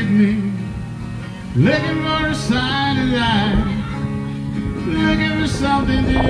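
A man singing into a microphone while playing a steel-string acoustic guitar.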